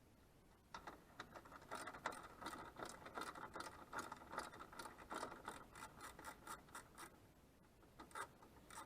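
Faint rapid clicking and scraping of hand tools and plastic as the nuts holding a Mazda RX-8's engine-bay plastic cover are undone, starting about a second in and thinning out near the end.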